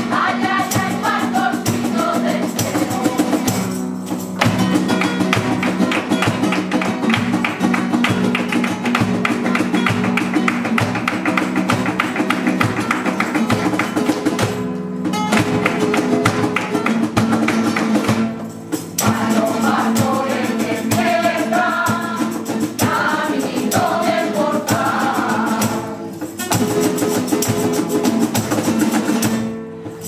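A flamenco-style villancico (Christmas carol) played live by a women's rociero choir singing over two strummed Spanish guitars, a cajón, a tambourine and rhythmic hand clapping (palmas). The music stops for a moment several times, and the singing comes in strongly again about two-thirds of the way through.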